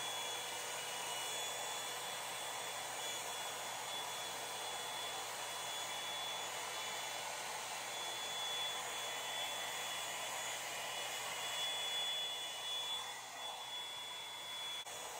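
Revlon One-Step hair dryer and volumizer brush running steadily: a rush of blown air with a high motor whine, as the brush is drawn through wet hair.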